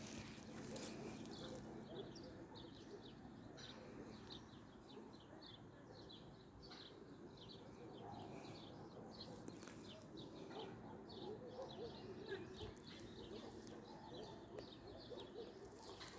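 Faint birdsong: a bird chirping over and over in quick short notes, several a second, over a low, steady outdoor background.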